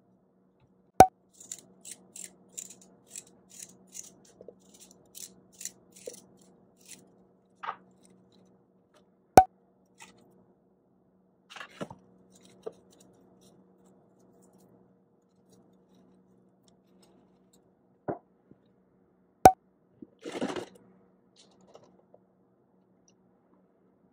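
Hands adding fruit and vegetable pieces into a plastic blender jar: soft crackly taps and small knocks, three sharp loud knocks, and a short rustle near the end, over a faint steady hum.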